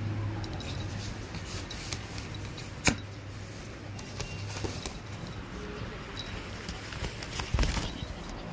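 Rustling and scuffing of a nylon pop-up play tunnel as small dogs scramble through it, with light clicks throughout, one sharp click about three seconds in and a heavier thump near the end, over a steady low hum.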